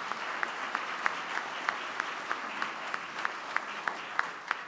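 Audience applauding, with one nearby pair of hands clapping sharply about three times a second above the crowd.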